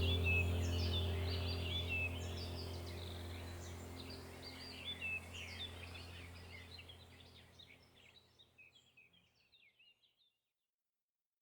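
Many small birds chirping quickly and continuously over a steady low hum, the whole ambience fading out to silence over several seconds.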